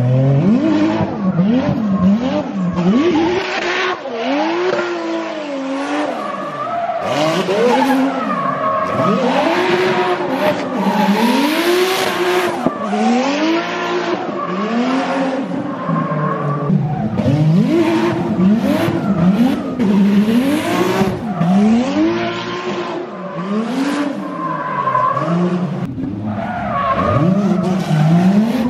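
Single-turbo 2JZ straight-six in a Mk4 Supra drift car revving up and dropping back over and over, about once a second, as the car slides sideways. Tyres squeal and hiss as they spin and smoke.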